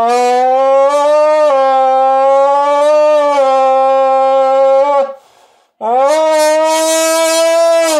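A person buzzing into the mouth of a crushed soda can with three holes punched in its side, imitating a race car engine. Two long held notes, with a short break about five seconds in; the second starts with a quick rise in pitch.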